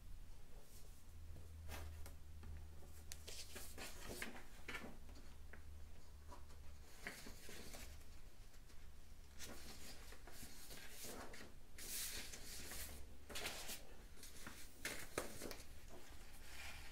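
Quiet, irregular rustling and scratching of paper being handled, in short strokes that come and go, over a steady low hum.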